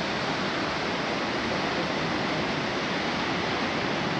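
Steady rushing outdoor noise, even throughout, with no engine running.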